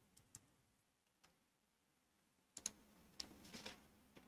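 Faint clicks of computer keys being typed in an otherwise near-silent room, a few single clicks early, then a denser patch of faint clicking and rustle about two and a half seconds in.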